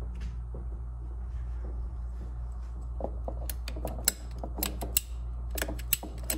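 A hand-squeezed PEX pipe cutter working on half-inch PEX tubing, giving a series of sharp, irregular clicks and snaps in the second half, over a steady low hum.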